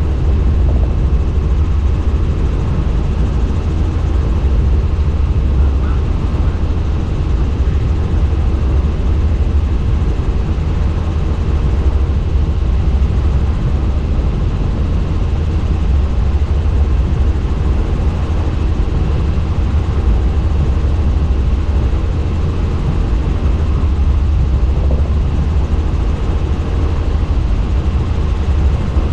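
Helicopter in flight: a steady, loud rotor and engine drone with a heavy low rumble that holds unchanged throughout.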